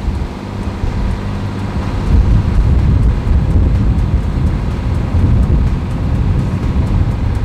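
Wind buffeting the microphone over the low, steady running of a sailboat's inboard engine as it motors under power.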